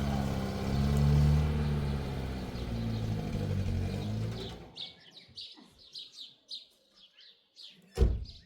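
A motor vehicle's engine runs at a low, steady pitch and cuts off abruptly about halfway through. Birds then chirp repeatedly, and there is a single sharp knock near the end.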